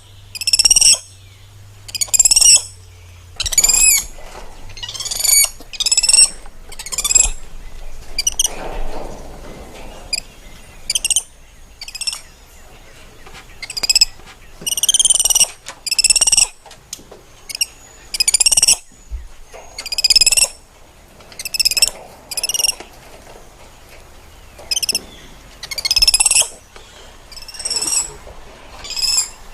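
Spider monkey giving a long series of short, high-pitched squealing calls, each with a wavering pitch, one every one to two seconds.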